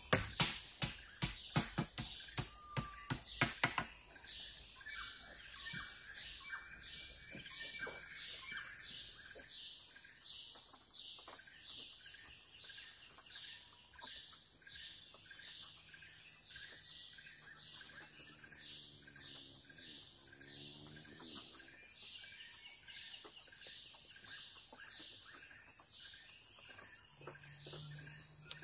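Rural forest ambience: birds chirping in a short call repeated a couple of times a second over a steady high insect drone. In the first four seconds a run of sharp knocks, about three a second, then stops.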